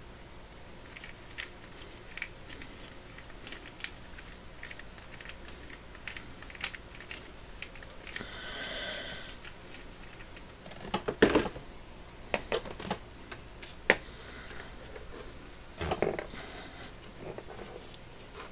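Small metallic clicks and taps as a T15 Torx screwdriver backs the screw out of a ratchet's swivel joint, with a cluster of louder clicks a little past the middle and again near the end as the joint's metal parts are handled and pulled apart.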